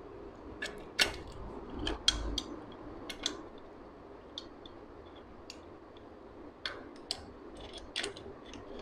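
Metal parts clicking and clinking as a Honda CG125 kick-start shaft, with its return spring and washers, is worked into the engine's crankcase by hand. About a dozen scattered sharp clicks, the loudest in the first two and a half seconds.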